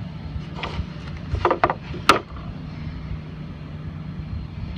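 Hinge boring machine's motor humming steadily, with a few sharp knocks and clacks: a cluster about a second and a half in and one loud knock just after two seconds.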